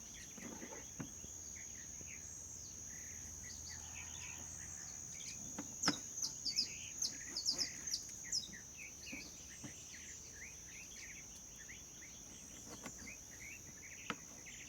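Natural background of a steady high-pitched insect buzz, with birds chirping in a flurry of short calls around the middle. A few sharp clicks come through as well.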